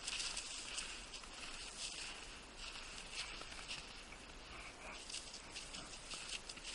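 Footsteps crunching on thin snow: an irregular run of crisp little crackles over a soft hiss.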